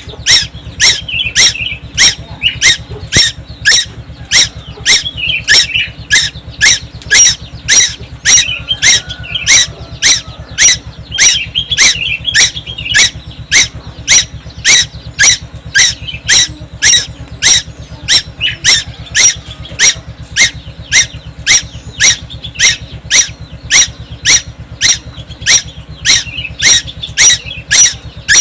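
A young tuwu bird from Timor calling without pause: loud, sharp, evenly repeated calls at about two a second, with softer chattering notes in between now and then. A steady low hum runs underneath.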